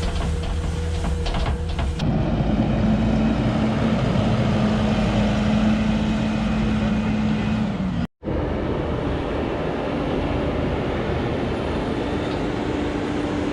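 Heavy farm machinery engines running steadily. The sound changes abruptly about two seconds in and drops out for a moment about eight seconds in.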